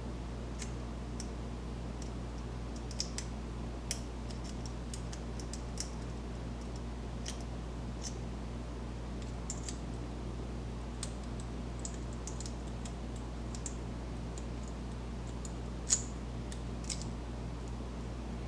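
Steel rake pick scraping and clicking against the pin tumblers inside a Master Lock padlock held under tension: scattered faint irregular clicks, with one sharper click about 16 seconds in, over a steady low hum.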